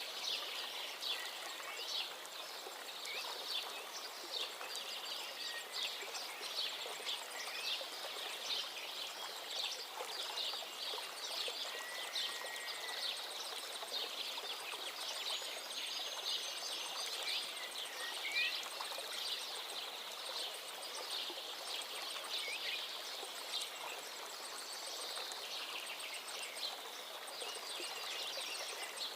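Steady hiss with dense crackling and a few short high chirps, like birdsong over running water.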